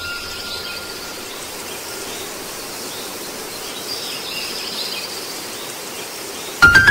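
A steady hiss with faint high chirps. Near the end, music comes in loudly with sustained piano-like notes.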